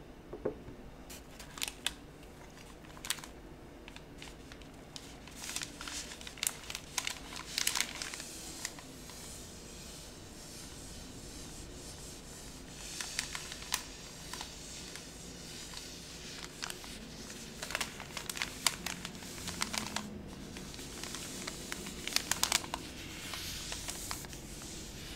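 Paper being scrunched and crinkled, in short crackling bouts separated by quieter pauses.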